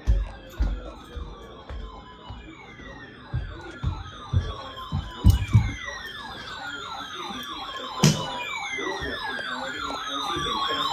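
Several electronic siren tones sounding at once: a fast high warble and a slower wavering lower tone, with falling sweeps repeating over them. Low thumps come through in the first half, and there is a sharp click about eight seconds in.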